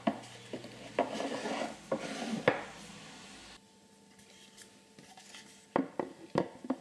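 Wooden drawer of a lathe stand being handled and slid in its opening: rubbing and scraping with irregular light wooden knocks, a sharper knock about two and a half seconds in, and a cluster of knocks near the end.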